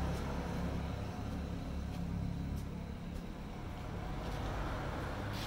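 A 1985 Yamaha motorcycle's small single-cylinder engine idling steadily.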